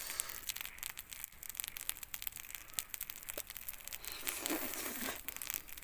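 Open wood fire crackling with many irregular sharp pops, and a brief faint hum about four seconds in.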